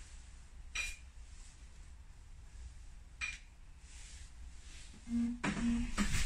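Two light clinks of tableware, bowl or plate knocked by chopsticks, about a second in and about three seconds in. Near the end an animal starts calling in short pitched cries, louder than the clinks.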